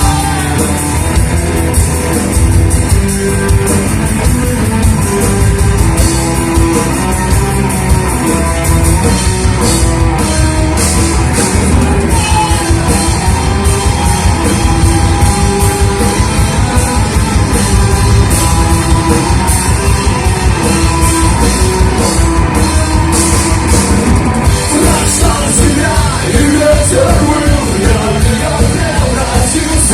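Loud rock music played on a drum kit, with singing.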